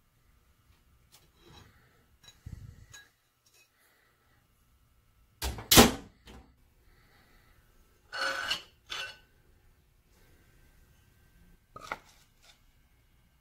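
Scattered handling knocks and scrapes as a grinding wheel is taken out of a steel shop cabinet. The loudest, a double clunk about six seconds in, is the steel cabinet door being shut. A last knock near the end comes as a wooden board is set on the surface grinder's chuck.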